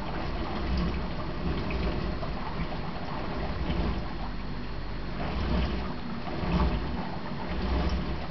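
Steady low rumble with a hiss of noise over it, swelling and easing gently every second or two, with no distinct single event.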